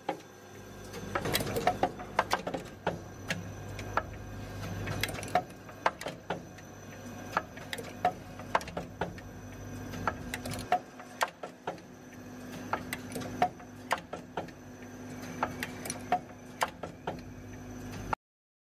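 Automatic clip assembly machine running: a vibratory bowl feeder's steady hum under many sharp, irregular metallic clicks and clacks of parts and mechanisms. The hum drops away briefly about 11 s in, and all sound cuts off abruptly near the end.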